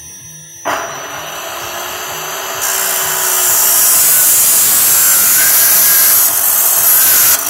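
Abrasive chop saw (cut-off machine) started about a second in, its motor spinning up. From about two and a half seconds its abrasive disc grinds through square steel hollow tube with a loud, high hiss. The grinding stops abruptly near the end as the cut finishes and the motor begins to wind down.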